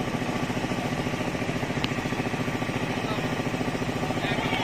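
A small engine running steadily with a fast, even pulse, with one sharp knock about two seconds in.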